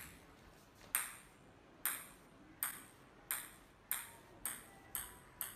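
Ping-pong ball hitting a hard tile floor: about eight sharp taps, each with a short ring, coming gradually closer together.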